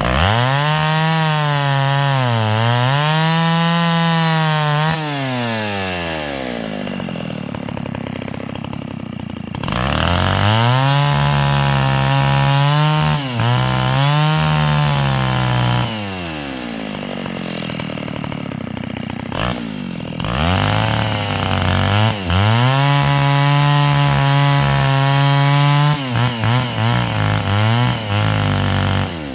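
Small engine revving up and down: it climbs to high revs and holds there wavering for a few seconds, then drops back, three times over. Near the end the revs break up in quick stutters.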